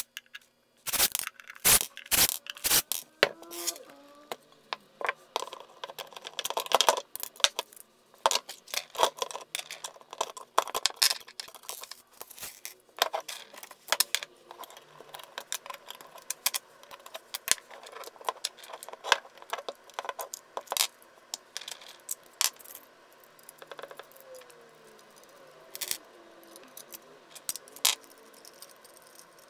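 Irregular sharp clicks and metallic clinks of a guitar pedal being taken apart by hand: screws, knobs and the folded steel enclosure knocking and rattling on a bench. The clicks are thickest in the first half and thin out toward the end.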